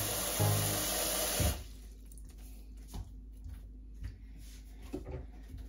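Kitchen tap water running into a steel sink over background music, both cutting off suddenly about a second and a half in. After that there are only a few faint knocks at the sink.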